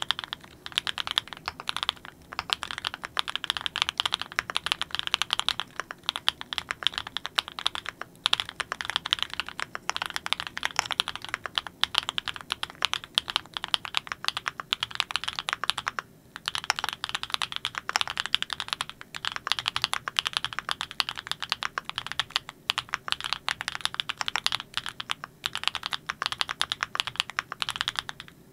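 Klein Mont Cervin custom mechanical keyboard, fitted with factory-lubed Candy Vanilla switches and a neodymium-magnet and O-ring mount, being typed on steadily. The keystrokes run continuously, with a few brief pauses.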